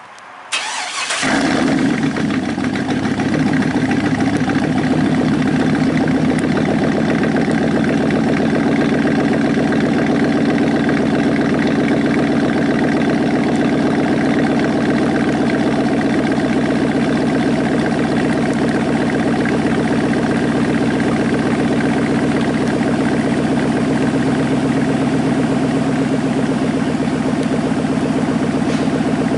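Cold start of a 2000 Chevy Silverado's 5.3-litre V8 with true dual exhaust, straight pipes and no mufflers: the starter turns it over briefly and the engine catches about a second in. It then settles into a loud, steady idle.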